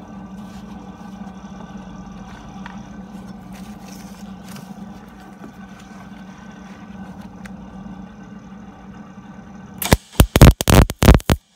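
A steady machine hum, then near the end a quick run of about six short, loud crackling bursts: a MIG welder tack-welding a new steel sill section on a Ford Transit MK5.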